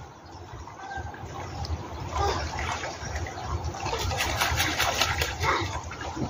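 Water splashing and trickling as geese bathe in a shallow stream, the short splashes coming more often from about four seconds in, over a low rumble.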